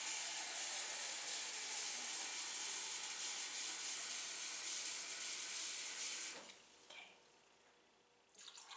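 Kitchen sink faucet running cold water into a large glass measuring cup; the tap is shut off about six seconds in. Near the end, water starts pouring from the cup into a plastic tub of brine.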